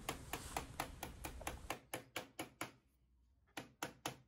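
Light, rapid hammer taps on a metal punch, about four a second, then a short pause and a few more taps near the end. The taps bend the radiator header's locking teeth back over the plastic upper tank to clamp it in place.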